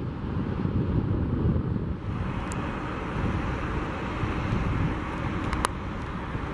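Boeing C-32A's twin Pratt & Whitney PW2040 turbofans at taxi power: a steady rumble with a jet hiss that grows stronger about two seconds in, while wind buffets the microphone. Two faint clicks come near the middle and later on.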